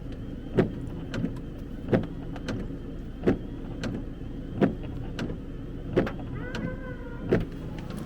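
A hound pup in the truck's dog box barking once about every second and a half, steady and evenly spaced, over the low running of the truck engine. About six and a half seconds in there is a short wavering whine or cry.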